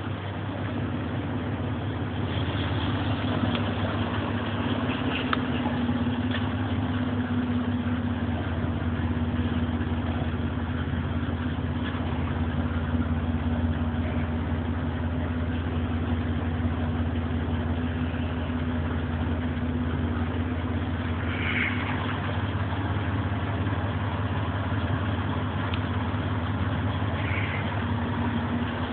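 A steady low mechanical hum, like an idling engine, runs under a constant even hiss without change.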